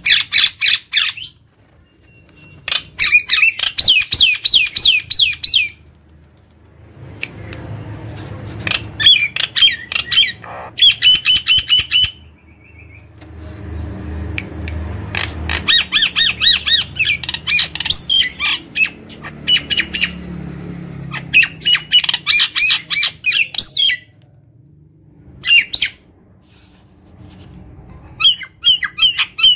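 Common myna singing in loud bursts of rapid, repeated rattling chatter, each lasting from half a second to a few seconds, with quieter stretches between.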